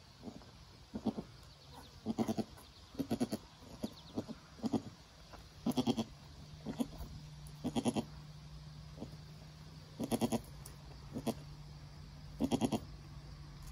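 Nigerian Dwarf goat bleating in short, low, pulsing calls, about ten of them repeated every second or two, the loudest in the second half.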